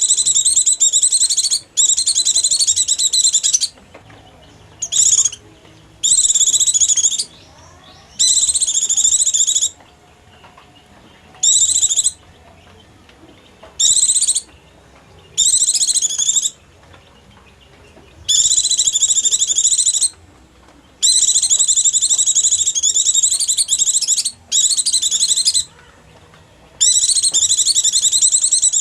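White-eye (pleci) song: fast, high twittering phrases, each about half a second to three seconds long, repeated with short pauses between them. It is a lure call for drawing wild white-eyes.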